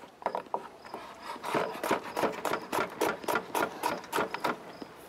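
A chef's knife chopping red bell pepper on a plastic cutting board: a quick, steady run of knocks, about three or four a second.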